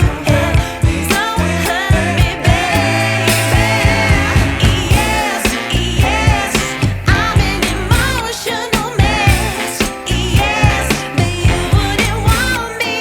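Background pop music: a singing voice over a steady beat.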